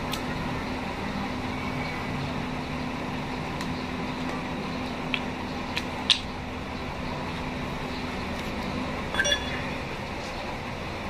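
Steel transmission gears and shaft parts clinking as they are handled by hand: a few sharp metallic clicks around the middle and a brief ringing clink near the end. A steady low hum runs underneath.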